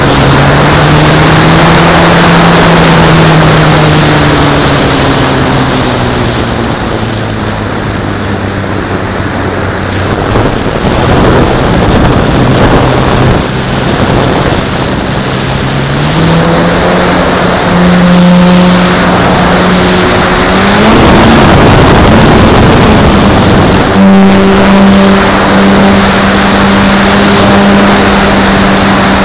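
Onboard sound of a radio-controlled Extra 330L model plane in flight: the motor and propeller drone over heavy wind rush on the microphone. The pitch sinks and the sound eases in the first several seconds, then rises again past the halfway point and holds higher to the end.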